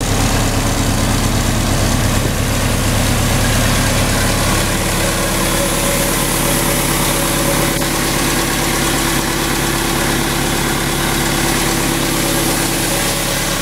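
2001 LeRoi portable air compressor running steadily on its John Deere four-cylinder diesel engine, an even, unchanging diesel drone.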